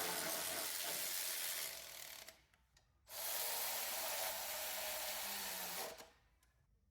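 Handheld power tool running in two stretches with a short pause between, driving in the alternator's mounting bolts.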